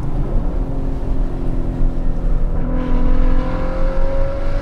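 Maserati Ghibli S's twin-turbo V6 in sport mode, heard from inside the cabin, pulling hard under acceleration. The note rises steadily in pitch and gets louder a little under three seconds in.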